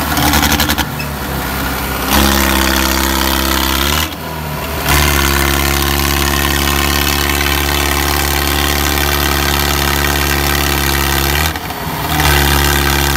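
Mahindra Arjun 605 DI tractor's diesel engine working hard at high revs, hauling a loaded trolley out of a sandy pit while its rear tyres spin in the sand. The revs step up about two seconds in and then hold steady, with brief dips around four seconds in and near the end.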